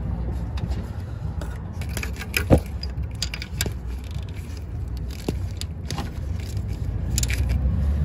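Scattered metallic clinks and taps of hand tools and engine parts being handled, the sharpest about two and a half seconds in, over a steady low hum.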